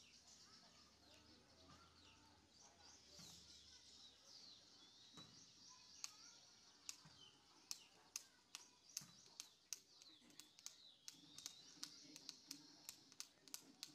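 Faint birdsong chirping in the background. From about six seconds in, a quick run of sharp little clicks, about three a second, from fingernails picking nits out of the hair.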